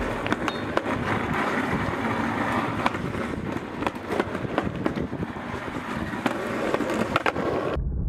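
Skateboard wheels rolling over a concrete sidewalk with a steady rough rumble, clicking sharply again and again as they cross the joints between slabs. The rolling cuts off suddenly near the end.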